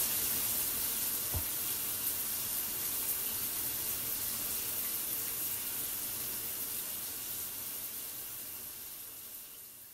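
Steady hiss of running water, fading out slowly toward the end, with a soft thump about one and a half seconds in.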